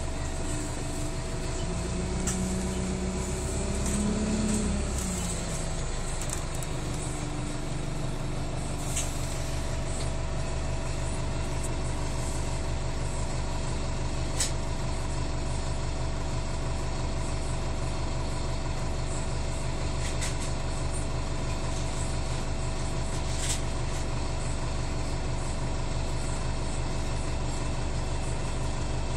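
Alexander Dennis Enviro 350H hybrid bus heard from inside the passenger saloon while running: a steady low drone with a steady whine over it. A tone rises and falls a few seconds in, and there are a few short clicks later on.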